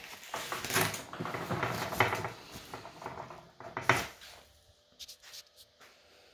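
Handling noise of unboxing: rustling and clattering as packaging and parts are moved, with two sharp knocks about two and four seconds in, then a few light clicks.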